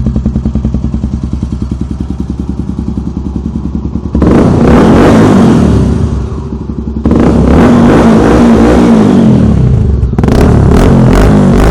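Honda Tornado 250's single-cylinder four-stroke engine through a Yoshimura aftermarket exhaust, at a steady pulsing idle. About four seconds in it is suddenly revved hard, and it is revved again twice more, with a short drop between the first two.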